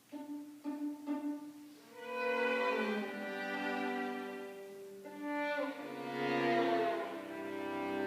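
String quartet of two violins, viola and cello playing. A few short, separate notes open it, then sustained chords swell twice, with sliding pitches in the second swell.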